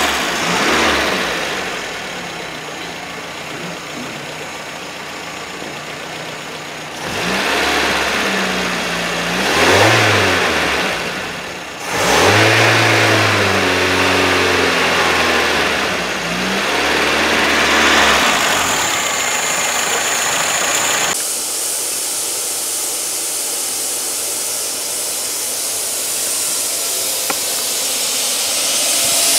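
Car engine revving up and down several times. About two-thirds of the way through it cuts abruptly to a steady hiss.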